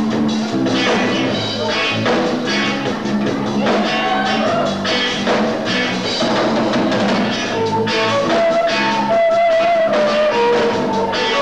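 Live rock band playing, with drum kit and electric guitars; from about eight seconds in, a held melodic line stands out over the band.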